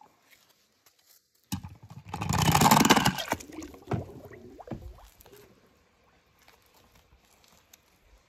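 A sudden splash and slosh of water in a plastic tub, loudest for about a second, followed by a few light knocks and trickles that die away.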